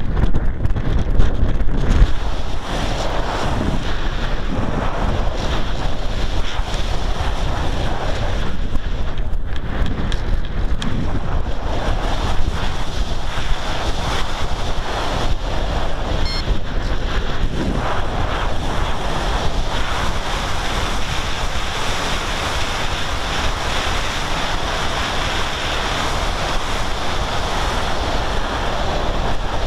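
Wind buffeting the microphone: a loud, steady rush of noise heaviest in the low end, with gusty flutter but no distinct events.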